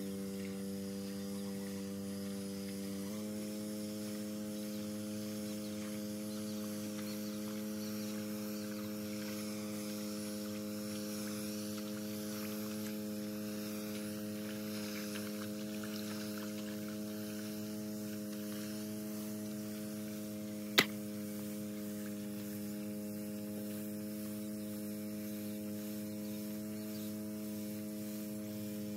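Small four-stroke 139F petrol engine of a portable power sprayer running steadily at high speed and driving the spray pump. It steps up slightly in pitch about three seconds in. A single sharp click comes about two-thirds of the way through.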